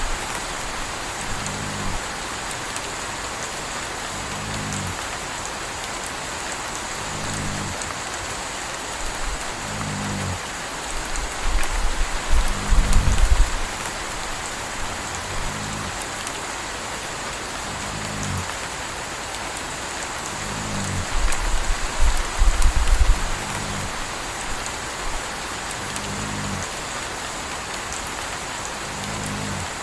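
Steady rain with a puppy snoring in a regular rhythm, one short snore about every two and a half seconds. Twice, for a second or two, there is a louder low rumble.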